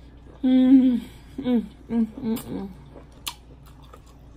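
A woman's closed-mouth "mmm" hums of enjoyment while chewing: one longer falling hum about half a second in, then three or four shorter ones. A single sharp click comes a little after three seconds.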